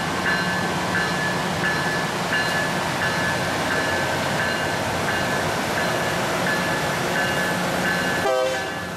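LORAM rail grinder's warning bell ringing steadily, about one and a half strokes a second, over the low rumble of its diesel engines. Near the end there is a brief falling sweep, and the sound gets quieter after it.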